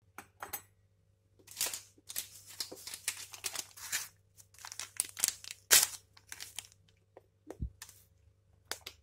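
Paper sachet of baking powder being crinkled and torn open: a run of rustling and crackling, with one sharp snap about two-thirds of the way through and a light low bump soon after.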